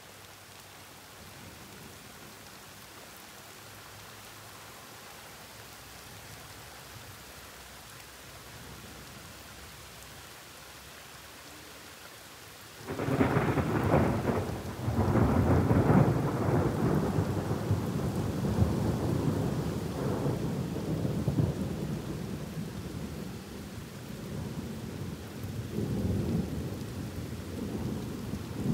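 Steady rain, then about halfway through a sudden clap of thunder that rolls on in a long rumble, dying down and swelling again near the end.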